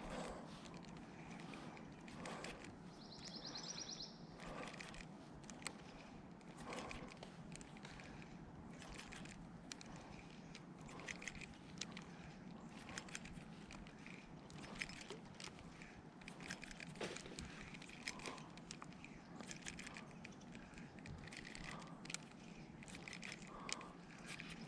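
Faint outdoor ambience by a pond: scattered small clicks and rustles, with a short high trill about three seconds in.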